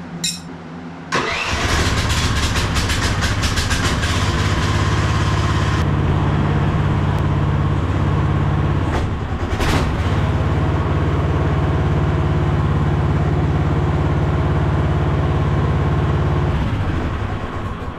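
Mini excavator engine starting about a second in and running steadily, with a brief sharp noise about ten seconds in, then shut off and winding down near the end.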